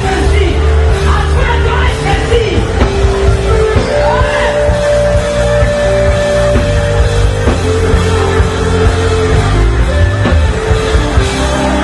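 Loud live gospel praise music through a PA system: heavy, steady bass and held keyboard-like notes, with a singer's voice over the band and shouts from the crowd.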